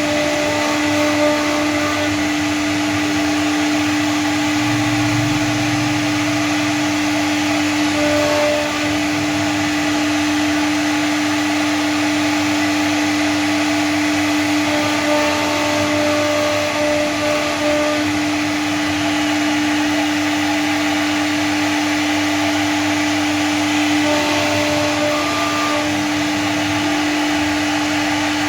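CNC router running steadily, its spindle giving a constant high hum over a hiss as it carves PVC board, with short higher whines from the axis motors that come and go every few seconds as the cutting head moves.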